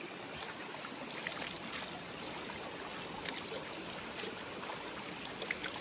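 Small forest stream flowing, a steady rush of running water.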